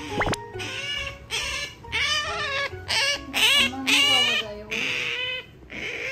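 Asian small-clawed otter giving a string of high-pitched squeaking calls, about eight in quick succession, each wavering in pitch.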